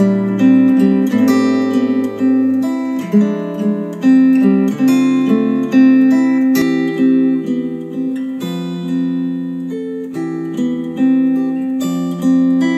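Acoustic guitar music, a steady run of plucked notes that ring and die away, played back through KEF R3 bookshelf speakers.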